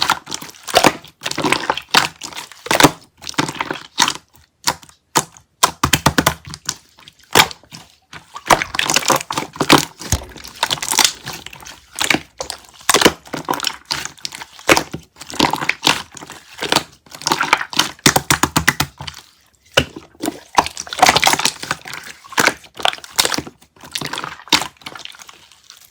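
Rapid crackling and crunching clicks in dense runs, broken by a few brief pauses.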